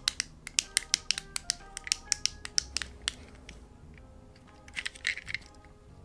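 Buttons on a plastic fidget pad being pressed in quick succession: a run of sharp clicks for about three and a half seconds, then a short burst of clicks near the end. Soft background music plays underneath.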